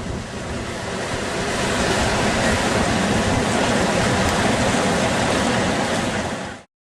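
Rushing river water with wind noise on the microphone, a steady dense rush that grows a little louder about two seconds in and cuts off suddenly near the end.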